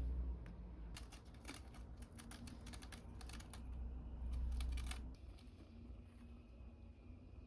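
Parts being handled while something is assembled: a quick, irregular flurry of clicks and rustles from about one second in until about five seconds in.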